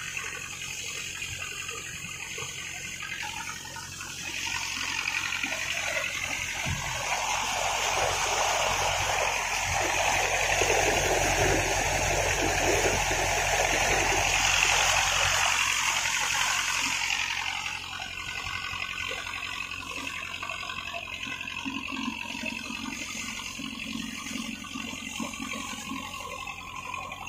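Sea water rushing and splashing along the hull of a moving wooden fishing boat, swelling about four seconds in and easing off again a few seconds before the end, with the boat's engine humming low underneath.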